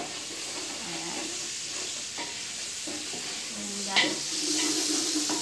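Garlic, onion and vegetables sizzling in hot oil in a pan on a gas stove, a steady frying hiss, with one sharp clack of a utensil or pot about four seconds in.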